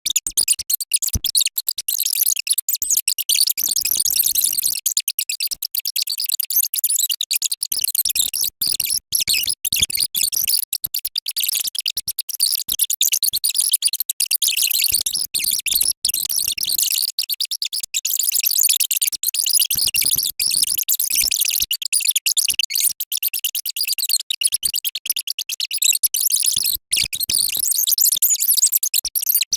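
A rapid-fire chain of short anime-style sound effects played at ten times speed, so they come out mostly shrill and high-pitched, chopping and changing many times a second.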